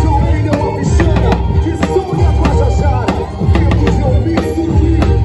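Boi-bumbá band playing a toada: heavy pulsing bass and drums under a melodic line, with regular percussion hits.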